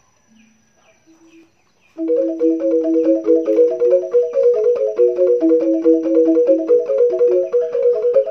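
Balinese rindik (bamboo xylophone) struck with mallets, with no suling flute, starting about two seconds in: a fast, repeating pattern of short, bright notes.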